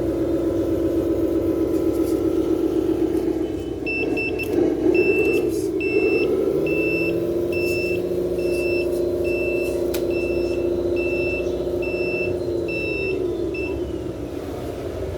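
RC truck's electronic sound module playing a steady diesel-engine drone whose pitch shifts as the throttle changes. About four seconds in, a reversing beeper starts, sounding a bit more than once a second, and it stops shortly before the engine note drops near the end.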